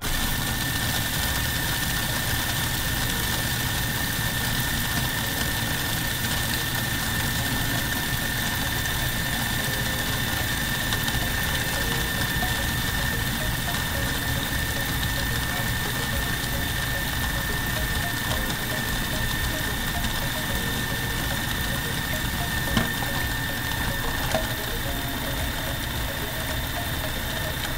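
Electric food processor running without pause as it blends biscuit crumbs with melted butter into a cheesecake crumb base. It is a steady motor whine with a high tone held throughout, and it switches on and off abruptly.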